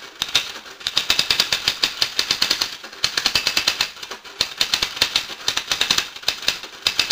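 Rapid, dry clicking and clattering in runs about a second long, with short lulls between.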